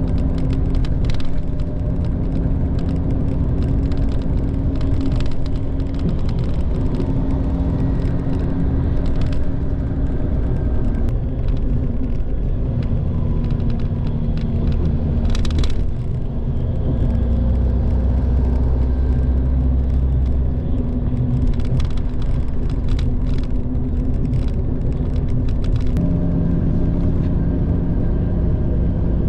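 Steady drone of a Mitsubishi Fuso Aero Ace diesel coach's engine and tyres, heard from inside the passenger cabin at expressway speed, with a few brief clicks and a short hiss about halfway through.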